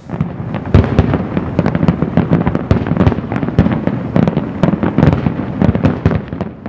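Fireworks going off in quick succession: many sharp bangs and crackles overlapping one another, dying away near the end.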